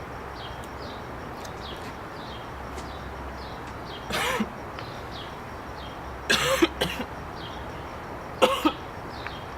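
A person coughing in three short bouts, about four, six and eight seconds in, the later bouts double coughs. Faint bird chirps repeat behind them.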